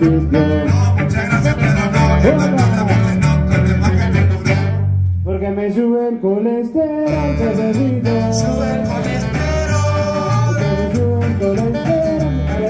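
Live band music: a singer with electric bass and guitar playing a steady groove. The bass drops out for about a second and a half about five seconds in, then comes back.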